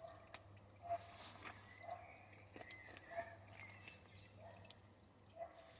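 A taped cardboard shipping box being cut and pried open with a knife and hands: scattered clicks, short scraping hisses and small squeaks of cardboard and tape.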